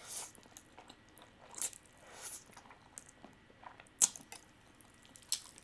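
Close-miked eating sounds of spicy instant fire noodles being slurped and chewed: short, irregular wet slurps and mouth sounds, the loudest about four seconds in and again near the end.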